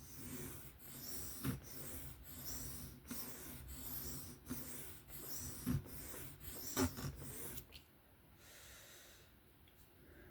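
The 154CM steel blade of a Kizer folding knife stroked back and forth over a 600-grit diamond sharpening plate, a rhythmic rasping scrape about one and a half strokes a second, raising a burr on the edge. The strokes stop about three-quarters of the way through.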